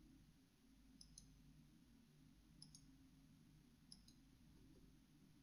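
Near silence: room tone with three pairs of faint computer-mouse clicks, about a second and a half apart.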